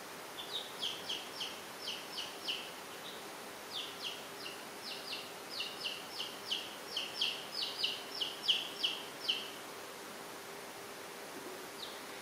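Young chicks peeping: a rapid series of short, high, falling peeps, about three a second, with a brief pause about three seconds in and stopping a couple of seconds before the end. A faint steady low hum runs underneath.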